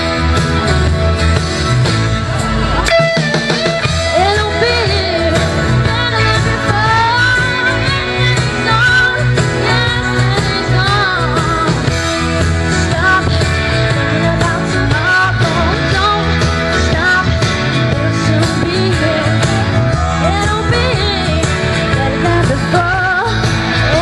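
A woman singing a pop-rock song into a stage microphone, amplified, over loud backing music with a steady bass line.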